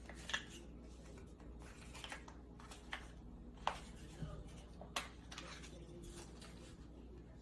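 A few short, light clicks and taps of small objects being handled, spaced a second or so apart, over a steady low hum.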